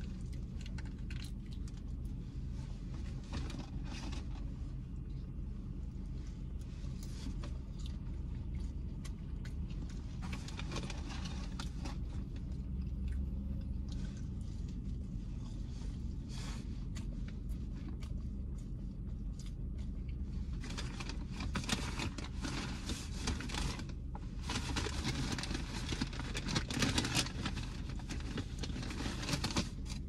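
Fast-food paper bag and wrappers rustling and crinkling as food is handled and unwrapped, with bites and chewing. The crinkling is loudest and most continuous in the second half, over a steady low hum in the car cabin.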